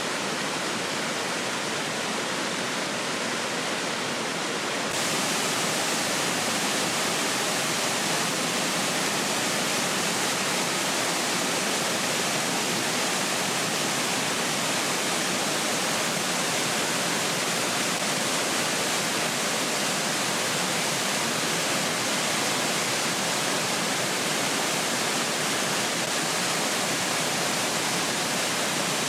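Waterfall crashing down, a steady, dense rush of water. About five seconds in it turns a little louder and brighter in the hiss.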